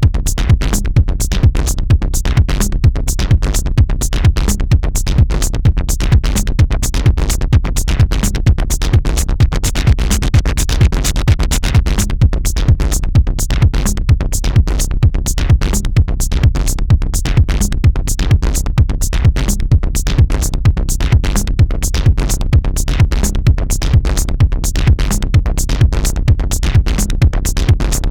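Electronic dance music with a steady drum-machine beat.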